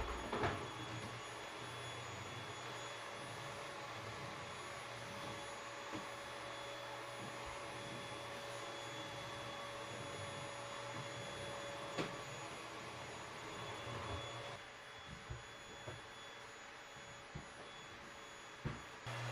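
A vacuum cleaner running in the background: a steady whirring hum that drops away about three-quarters of the way through. A few light taps of a marker on paper.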